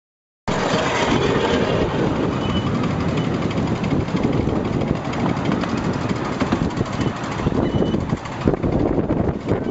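Ride-on miniature railway train, hauled by a live-steam GWR pannier tank locomotive, running along the track as heard from on board: a steady rumble with dense clatter from the wheels on the rails. The sound cuts in about half a second in.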